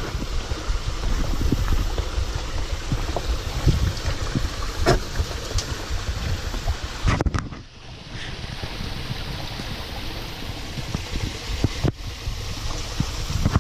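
Steady rushing water of a small woodland waterfall, with wind rumbling on the microphone and a few sharp clicks.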